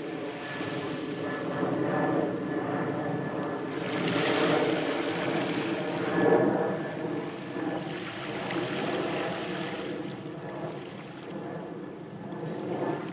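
Sea surf washing onto the shore, surging every couple of seconds, with a faint steady drone underneath.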